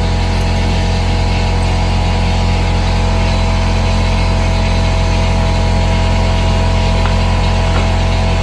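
A machine running steadily at one constant pitch: an even, unbroken engine-like drone with a strong low hum.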